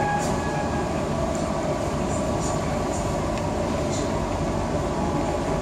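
Steady rumble and hum heard inside a passenger coach of the Argo Parahyangan (Turangga stock) as it rolls slowly along, with a few faint clicks.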